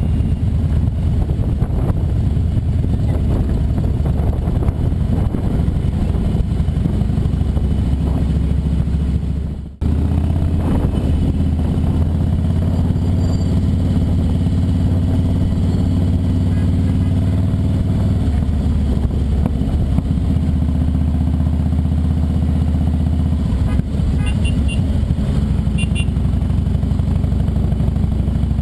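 Harley-Davidson V-twin motorcycle engine running steadily under way. The sound cuts out briefly about ten seconds in.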